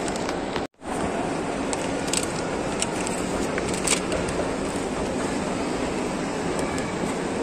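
Steady shopping-mall ambience: an even wash of crowd and building noise, with a few faint clicks. The sound cuts out completely for a moment just under a second in.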